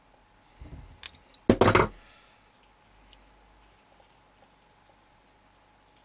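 A metal adjustable spanner set down on a wooden workbench: a soft knock, then a brief, loud metallic clatter about a second and a half in.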